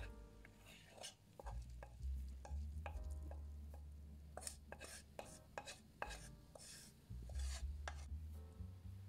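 Fried carrot and onion being scraped out of a frying pan into a ceramic bowl: a run of short scrapes and taps of a utensil against the pan, with soft falls of food into the bowl, coming thicker in the second half.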